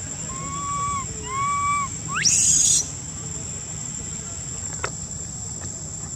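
Baby macaque crying for its mother: two clear coos of about half a second each, then a call that sweeps sharply upward into a brief shrill shriek, the loudest sound. A steady high-pitched insect drone runs underneath.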